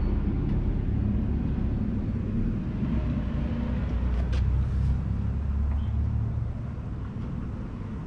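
A vehicle engine running nearby: a steady low rumble that eases off a little near the end.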